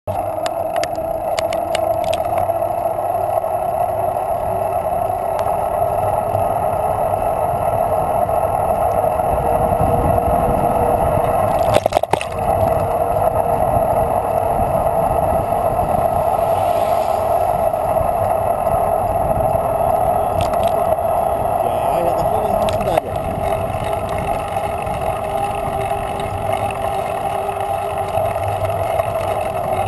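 Riding noise from a mountain bike rolling along an asphalt street: a steady hum with low wind rumble, broken by a brief knock about twelve seconds in.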